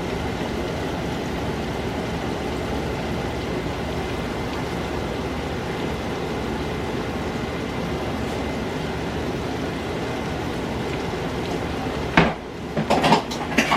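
Chicken pieces deep-frying in hot oil, a steady sizzle. A few knocks of pans or utensils near the end.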